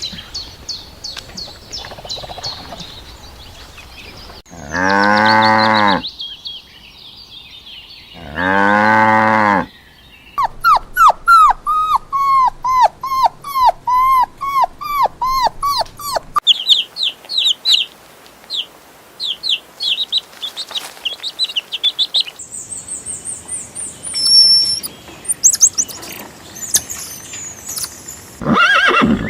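A cow mooing twice, each moo long and loud, followed by runs of quick, repeated high chirping calls.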